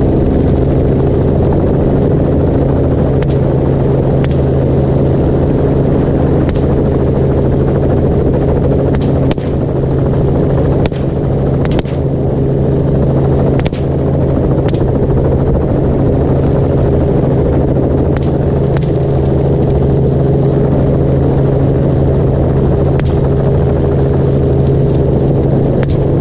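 Helicopter running steadily in flight, a constant low rotor and engine drone heard from aboard the aircraft.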